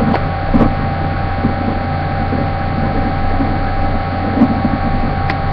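Steady hum and hiss with a constant mid-pitched tone, and a few faint knocks.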